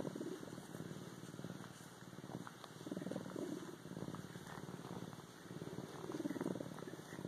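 Bobcat purring steadily. The purr swells louder about every three seconds.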